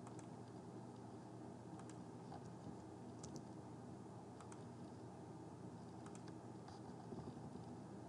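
Faint, scattered single clicks of a computer mouse and keyboard over a low, steady background hum and hiss.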